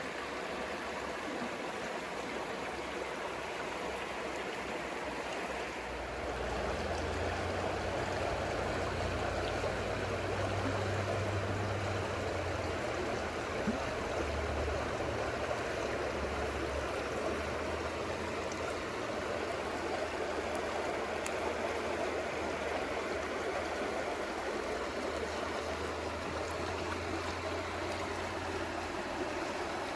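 Stream water flowing steadily. A low rumble joins it about six seconds in and lasts until near the end.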